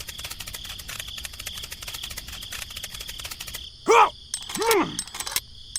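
Insects chirping in a fast, steady pulsing chorus. About four seconds in come two short voice-like calls, the loudest sounds here, each rising and then falling in pitch.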